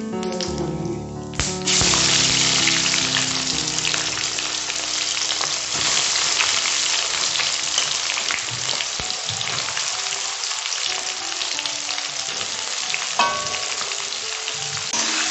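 Sliced onions frying in hot oil with whole spices in a kadai: a loud, steady sizzle that starts suddenly about two seconds in, after a short stretch of background music. The sizzle swells again near the end as more onions go in.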